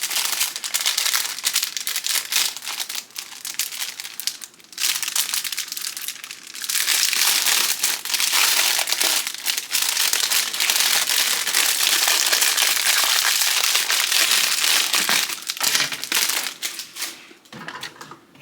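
Packaging being crinkled and crumpled by hand while makeup brushes are unwrapped. It comes in short broken bursts at first, then runs almost continuously through the middle and tapers off near the end.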